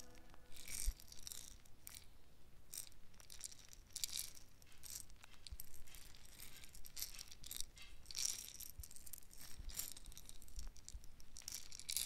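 Faint, irregular rattling hiss, a shaker-like noise texture, left at the tail of an instrumental beat once its pitched melody stops just after the start.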